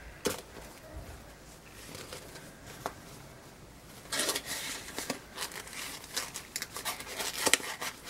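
Crinkling and rustling of a sheer drawstring bag and its card label as wool roving is handled and worked into the bag: quiet at first, then dense crackly rustling from about halfway through.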